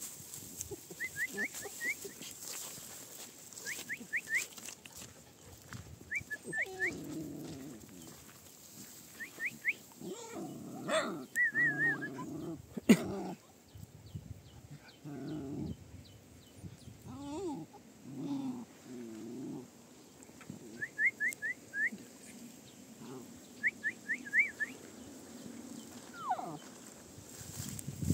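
A dog whimpering and giving short vocal sounds on and off. Through it, small birds repeat quick runs of three or four rising chirps.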